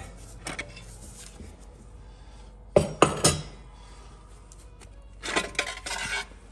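Metal parts of an 8L90 automatic transmission clinking and clattering as they are pulled out and set down during a teardown. Three sharp clinks come about three seconds in, and a burst of rattling clinks follows near the end.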